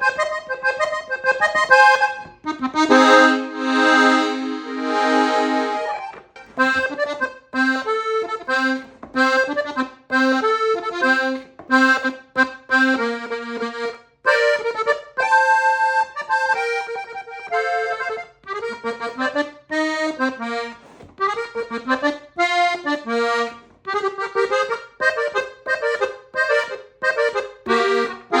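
Gabbanelli accordion playing a norteño tune: quick runs of short notes over bass, with a long held chord a few seconds in.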